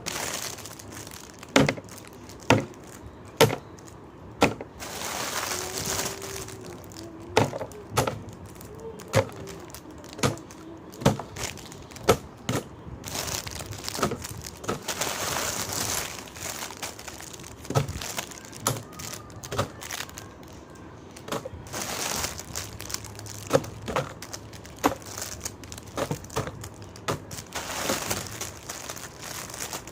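Plastic candy wrappers and packaging crinkling in stretches, with sharp, irregular clicks and taps of hard candies or plastic pieces knocking together.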